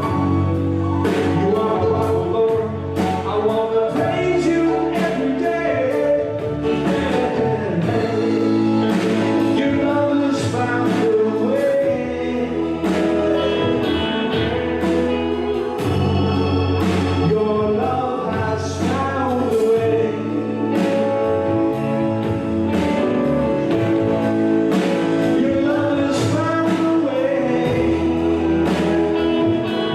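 Gospel music with singing, a choir and instruments over a steady beat.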